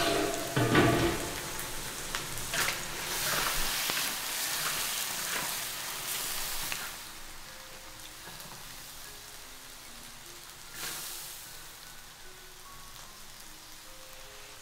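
Cabbage and yam starch sheets stir-frying in a wok: a steady sizzle with spatula strokes against the pan and a low knock about a second in, loudest over the first half, then dying down to a softer hiss with one brief flare later on. Soft background music plays underneath.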